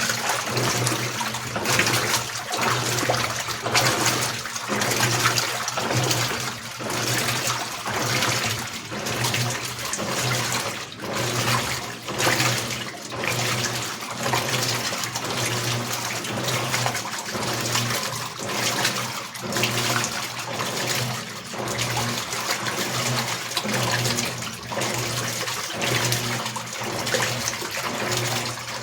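Electrolux Premium Care LEC15 15 kg washing machine in its second rinse: water sloshing and churning in the tub in repeated surges every second or two, over a steady low motor hum.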